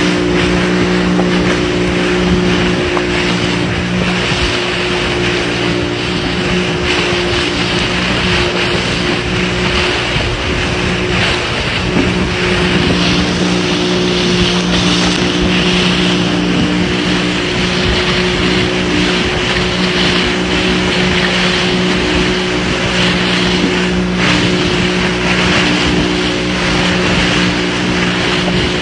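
Motorboat under way at speed: a steady engine drone mixed with the constant rush of spray and water breaking along the hull.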